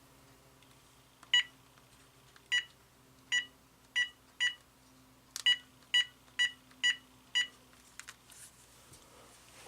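Keypad beeps from a General Electric 2.4 GHz cordless phone handset as a phone number is dialed: ten short beeps, one per key press, in two quick runs of five.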